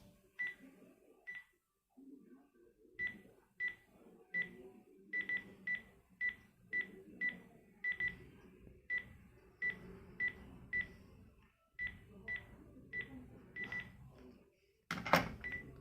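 Key-press beeps from a Panasonic KX-TG3711 cordless phone handset: a long series of short, high single beeps at an uneven pace, one per button press, as its menus are stepped through. A louder knock sounds near the end.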